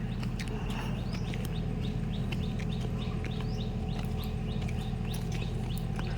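Small birds chirping, many short quick upward-sweeping calls repeating throughout, over a steady low rumble.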